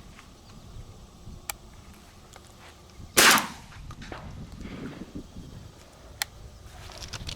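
A single shotgun shot, loud and sudden, about three seconds in, with a short echoing tail, fired at doves.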